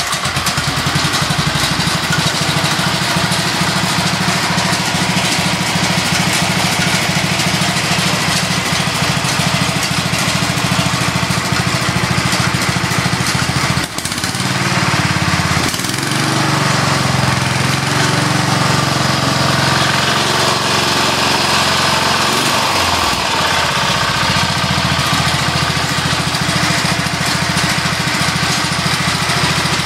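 Sears Suburban SS12 garden tractor's Tecumseh engine catching right away and running steadily, its carburetor just adjusted. About halfway through, the sound dips briefly and its tone shifts for several seconds before settling back.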